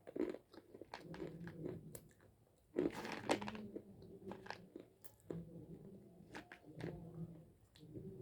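Close-miked biting and chewing of chunks of Hyderabadi white khadi (edible white chalk): dry, low crunching with many small crackles, a short pause about two seconds in, then the loudest crunch at about three seconds.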